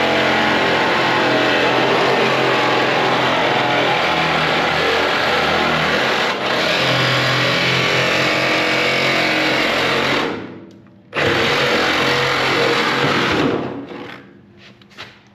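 Reciprocating saw (Sawzall) cutting out an old car floor pan, running steadily. It stops for a moment about ten seconds in, starts again, and winds down shortly before the end.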